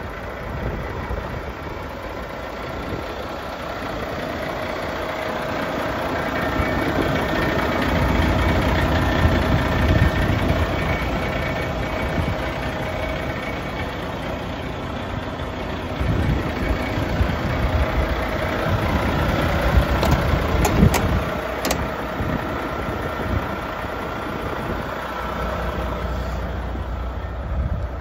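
Volvo FMX 460 concrete mixer truck's diesel engine running with a steady whine over it. The engine picks up and grows louder for several seconds, settles, then picks up again. A few sharp clicks come about two-thirds of the way through.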